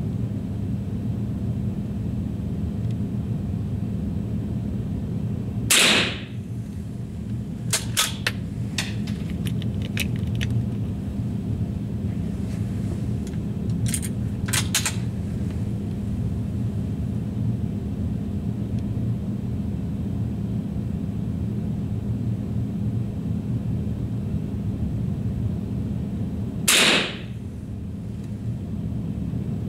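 Two rifle shots, each a sharp crack with a short ring after it, the first about six seconds in and the second near the end. Between them come a few runs of light clicks, over a steady low hum.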